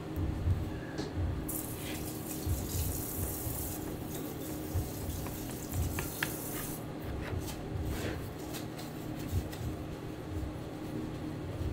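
A kitchen tap running into a steel sink for about five seconds, stopping about seven seconds in, over a steady low hum, with a few light clicks of the metal ladle as tomato sauce is spread over a pizza base.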